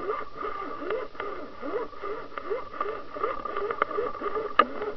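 Sound picked up by an underwater camera: a steady high whine with about two to three quick rising chirps a second and scattered clicks, with one sharper click near the end.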